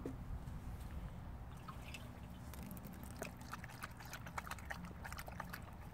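A New Zealand huntaway dog lapping water from a person's cupped hands: a run of short wet clicks, denser in the second half, with water dripping.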